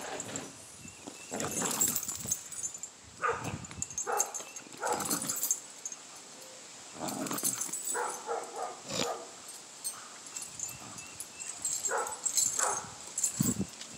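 Pit bull terrier tugging and shaking a hose on a tie-out chain: short, irregular dog noises come in bursts every second or so, with the chain clinking.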